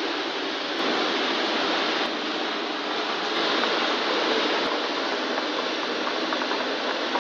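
Steady, even hiss of factory-floor noise, stepping slightly in level a few times.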